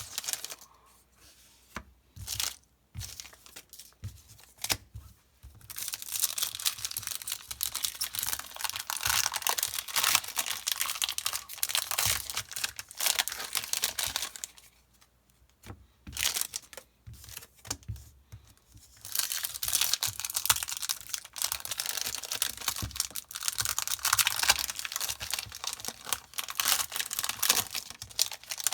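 Foil Yu-Gi-Oh booster pack wrappers being torn open and crinkled by hand, in two long stretches of dense crackling. Between them are scattered quieter clicks of handling.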